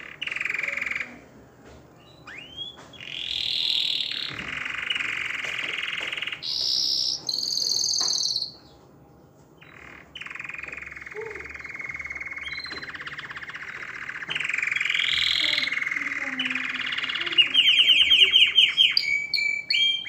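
Male domestic canary singing: long rolling trills and tours, one after another. There is a short lull about nine seconds in, and a run of fast repeated notes near the end.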